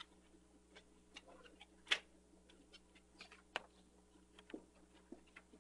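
Scattered faint clicks and taps at an irregular pace, the sharpest about two seconds in, over a steady low hum.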